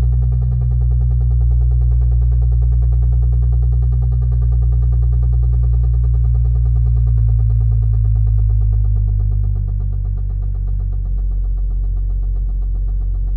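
Car engine idling after a cold start with a fast, repeating knock whose cause the owner can't figure out. About ten seconds in, the idle settles lower and a little quieter.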